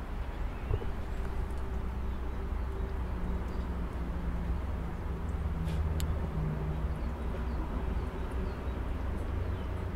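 Steady low rumble of a running motor, its pitch wavering a little, with a couple of sharp clicks about six seconds in.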